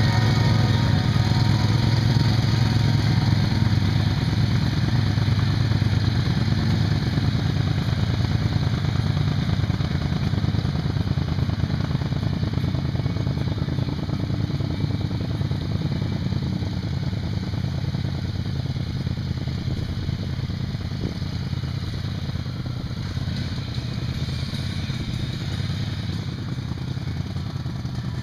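ATV engine running as the quad pulls through a muddy water-filled trail, growing steadily fainter as it moves away.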